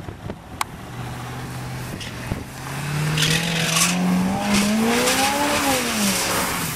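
Truck engine revving hard as it bogs through mud, climbing steadily in pitch for several seconds and then dropping away near the end, with a loud rushing hiss of spinning tires throwing mud in the middle.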